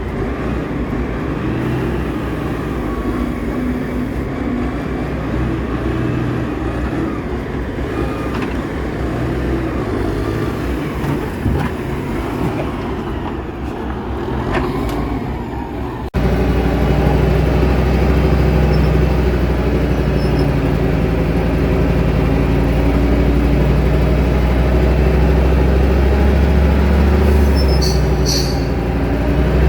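Heavy logging-truck engine running, its pitch wandering a little. About halfway through the sound cuts abruptly to a louder, steadier engine, with a few short high squeaks near the end.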